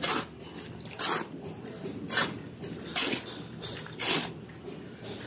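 Wet cement-and-sand mortar being mixed, with a wet scraping stroke about once a second.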